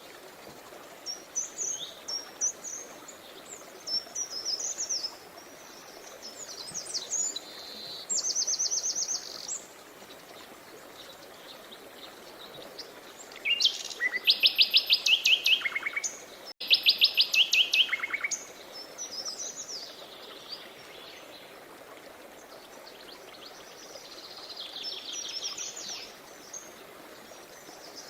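Songbirds singing over the steady rush of a river: scattered chirps and fast trills, the loudest a run of rapid trills about halfway through.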